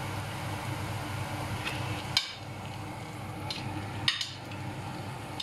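Diced chicken frying in a stainless steel pot while a metal spoon stirs, scraping and knocking against the pot, with two sharp clinks about two and four seconds in, over a steady low hum.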